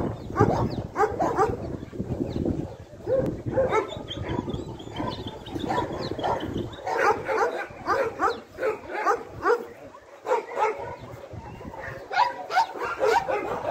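A group of dogs play-fighting, barking and yipping in quick overlapping calls, coming thicker and faster in the second half.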